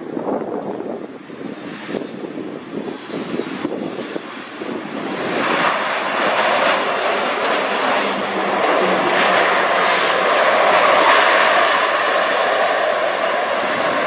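Boeing 737 MAX 8's CFM LEAP-1B turbofan engines on landing approach, a rushing jet noise that swells about five seconds in and stays loud.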